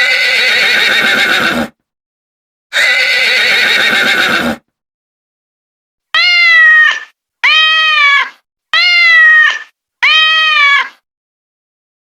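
Horse whinnying twice, each a long, rough, wavering call, followed by four short, evenly spaced calls that each rise and then fall in pitch.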